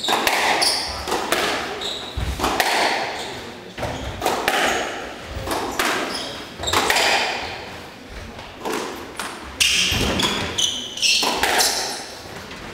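Squash rally: sharp racket strikes and the ball smacking the walls, each ringing in the enclosed court, about one every second or so. Short high squeaks of shoes on the wooden floor come between the shots.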